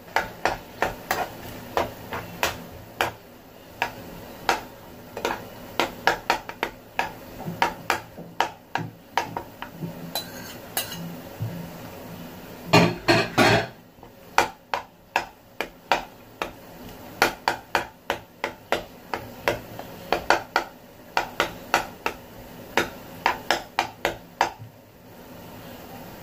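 Metal spoon clinking and scraping against a frying pan while stirring in beaten eggs: irregular taps throughout, with a quick, loud run of knocks about thirteen seconds in.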